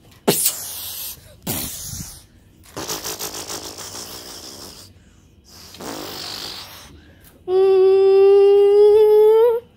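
A child making battle sound effects with his mouth: several short hissing blasts, one with a rapid buzzing rattle. Near the end comes a long held pitched 'eee' tone that rises slightly as it stops.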